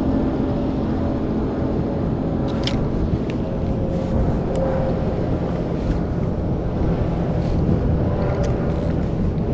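Fishing boat's engine running steadily with wind and water noise, and a few light clicks here and there.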